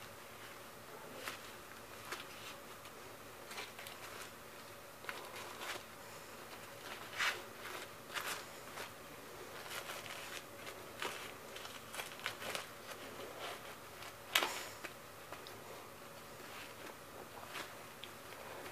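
Faint, irregular rustling and crinkling with small clicks as a doll diaper is handled and fastened onto a Baby Alive doll, with one sharper tap about three-quarters of the way through.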